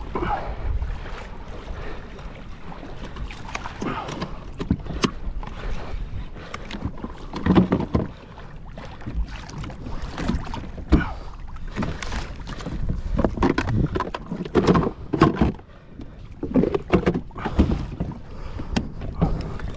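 Choppy sea water slapping and splashing against the hull of a plastic fishing kayak, in uneven surges with short knocks and thumps.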